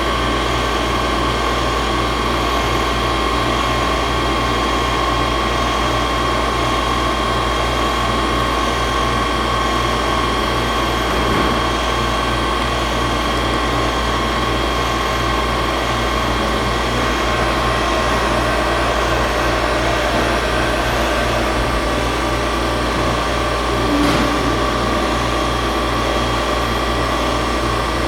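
Retrofitted 5-axis CNC milling machine running: a steady mechanical hum with a constant high whine, and a single click about 24 seconds in.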